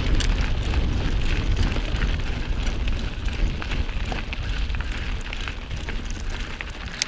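Mountain bike rolling along a dirt and gravel trail: steady tyre and wind rumble on the handlebar-mounted microphone, with scattered small clicks and rattles from the bike and loose stones.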